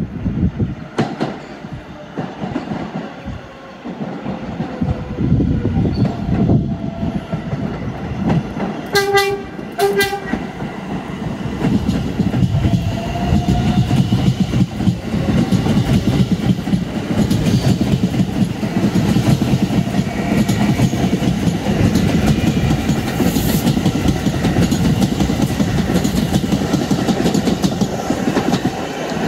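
R142A electric subway train approaching and passing through the station without stopping, sounding two short horn blasts about nine and ten seconds in. The wheel and rail noise grows louder as it nears and stays loud and steady as the cars run past.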